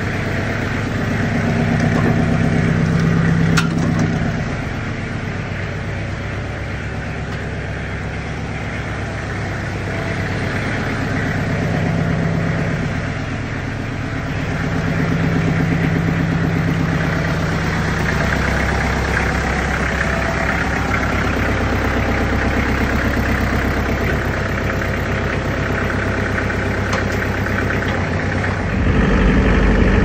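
Compact tractor engine running steadily, its speed swelling and easing a little, and getting louder near the end.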